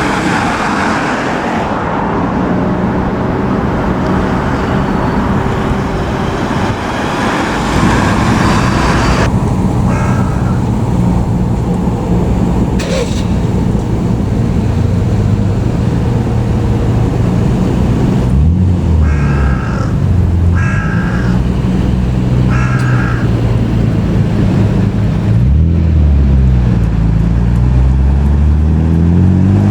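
Heavy fire-truck diesel engine running with a deep steady note, revving up about two-thirds of the way in, then rising in pitch as it pulls away near the end. A few short high-pitched calls sound over it.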